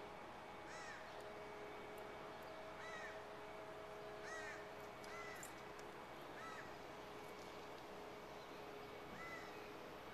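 A bird calling about six times in short, separate calls at irregular gaps, over a faint steady hum.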